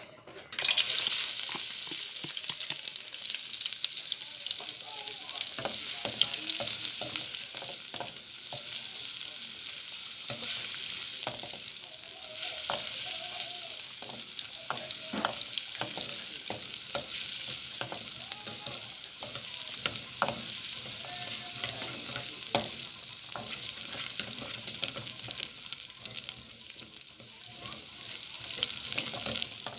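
Chopped onion and garlic dropped into hot oil in an aluminium pot, sizzling loudly from the moment they land about a second in. A ladle stirs them, clinking and scraping against the pot.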